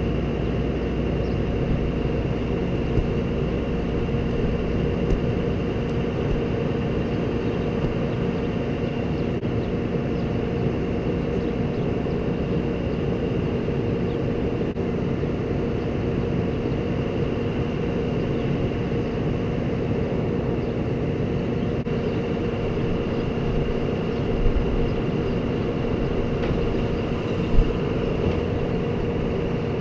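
Vehicle engine running at a steady speed, with a couple of short knocks near the end.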